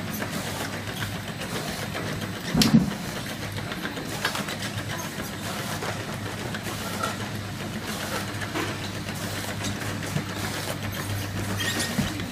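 Automatic round-bottle labeling machine running: a steady motor and conveyor hum with light clicking and clatter as the jars pass through. A louder thump about two and a half seconds in.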